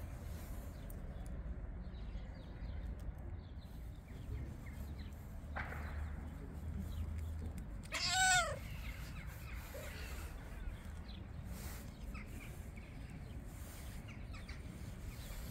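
A cat meows once, about halfway through: a short call that rises and then falls in pitch. A low steady background rumble runs underneath.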